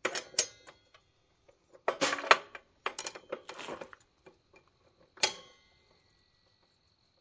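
Metal clicking and rattling of a wrench on a table saw's arbor nut as a new blade is tightened onto the arbor, in a few short clusters. About five seconds in, a sharp metallic clink rings on thinly for a couple of seconds.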